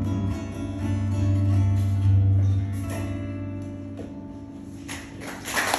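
Acoustic guitar strummed through its final chords, which ring on and slowly fade out at the end of the song. Applause starts near the end.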